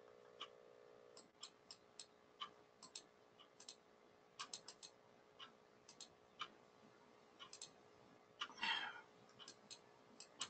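Faint, irregular clicks of computer mouse clicking, a few a second in clusters, with one short soft burst of noise about eight and a half seconds in. A faint steady hum stops just over a second in.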